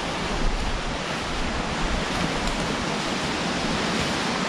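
Steady wind rushing, with a low buffeting rumble on the microphone.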